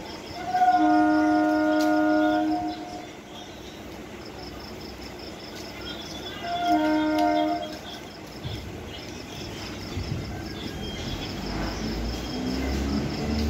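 Electric multiple unit (EMU) suburban train sounding its horn twice, a long blast of about two seconds and then a shorter one. After that comes a low rumble and a rising whine from its traction motors as the train starts to pull out. Crickets chirp faintly throughout.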